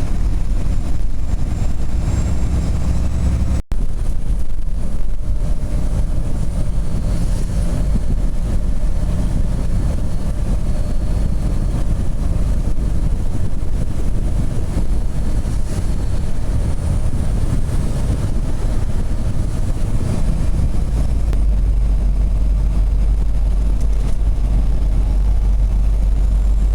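Inside a semi-truck cab at highway speed: the diesel engine runs in a steady low drone under continuous tyre and road noise. The sound cuts out for an instant about four seconds in. The low engine drone grows stronger after about twenty seconds.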